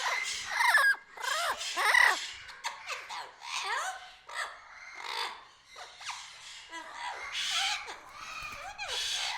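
A mixed flock of aviary birds calling over one another: short whistled notes that rise and fall, mixed with harsh squawks and chirps, the loudest calls about one and two seconds in.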